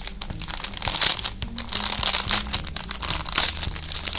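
Plastic squishy packaging crinkling as it is opened by hand, a dense run of irregular crackles.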